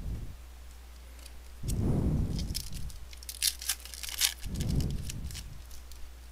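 A 2013 Bowman baseball card pack's foil wrapper being torn open by hand, a run of sharp crinkling and tearing in the middle of the stretch. Dull low handling thuds come just before and just after it.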